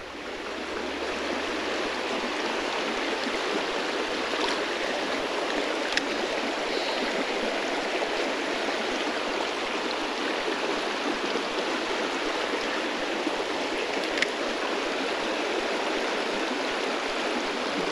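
Small, shallow mountain creek running over a rocky bed: a steady rush of flowing water, with a couple of faint clicks.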